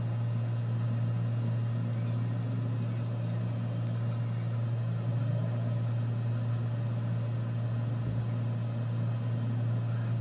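A steady low hum with a faint even hiss of background noise, unchanging throughout.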